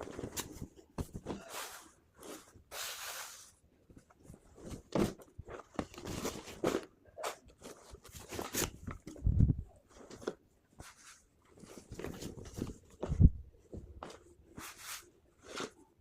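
Packaging and a T-shirt being handled during unboxing: irregular rustling and crinkling of wrapping and fabric, with a couple of soft thumps as things are set down.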